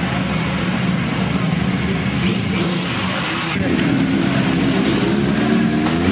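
Several superbike engines running together at idle with throttle blips, the pitch climbing in rising revs from about three seconds in.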